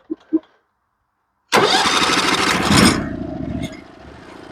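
Portable band sawmill's gas engine starting: after a brief silence it catches suddenly and runs loudly for about a second and a half, then settles to a steady, quieter idle.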